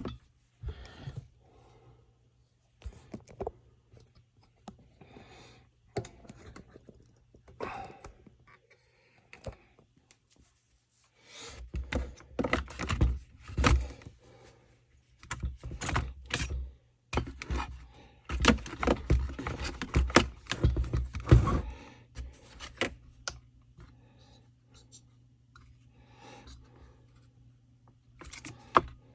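Clicks, scrapes and knocks of plastic and metal parts being handled and fitted together while reassembling a Stihl FS 45 string trimmer. The clicks are scattered at first, then a dense stretch of rattling and scraping fills the middle before thinning out again.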